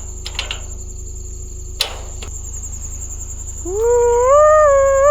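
Crickets chirping steadily, then near the end a long wavering howl begins, rising in pitch and stepping up and down, louder than everything else.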